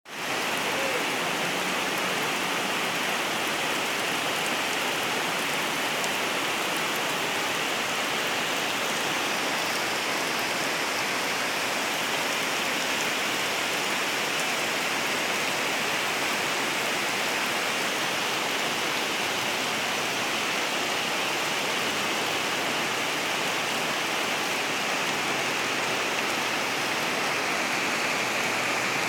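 Steady rain falling on trees, leaves and grass, an even hiss that keeps on without a break.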